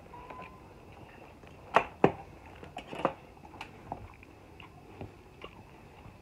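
Metal tongs and a fork clinking and scraping against a glass salad bowl: scattered light clicks, with two sharper clinks about two seconds in.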